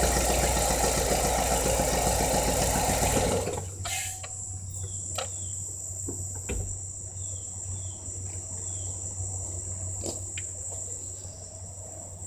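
GM 2.2 L Ecotec inline-four engine idling with a rapid, regular knock that has not been cured by new cam phasers, timing chain guides, tensioner and cam actuator solenoid. It is shut off about three seconds in. Afterwards there is a steady high-pitched insect chirring with a few light clicks.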